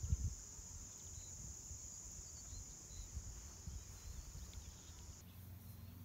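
Steady, high-pitched chorus of insects that cuts off about five seconds in. Under it runs a low rumble, with a brief thump at the very start.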